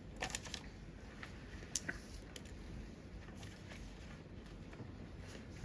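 A few faint, scattered clicks and taps over low room hum, the loudest about a quarter second and nearly two seconds in.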